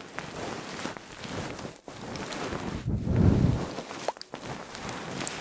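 Close-miked ASMR rustling and rubbing sounds, with a louder, deeper stretch about three seconds in.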